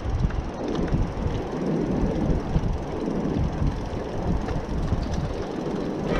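Trek bicycle's tyres rolling over the wooden plank deck of a pier: a steady, uneven low rumble with a few faint clicks scattered through it.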